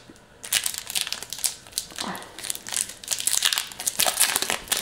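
Foil wrapper of a Pokémon trading card booster pack crinkling and crackling as it is handled and torn open by hand, starting about half a second in.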